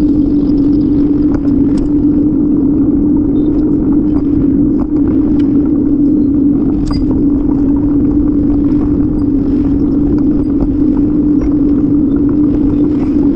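Steady loud rumble of wind and road noise on a camera riding on a moving bicycle, with a constant low hum and faint scattered ticks.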